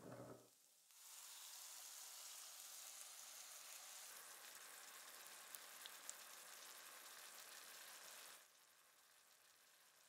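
Sliced onion, bell pepper and chopped tomatoes sizzling steadily in a frying pan, with a few faint ticks near the middle. A brief sound comes at the very start, and the sizzling stops about eight seconds in.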